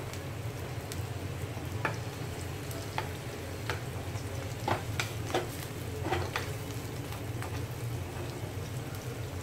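Chopped red onions sizzling in oil in a nonstick frying pan while a wooden spatula stirs them, clicking and scraping against the pan now and then. A steady low hum runs underneath.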